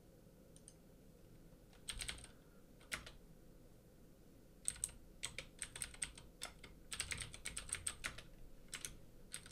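Computer keyboard typing, fairly faint: a couple of single key presses about two and three seconds in, then a quick run of keystrokes from about five seconds on as a short command is typed.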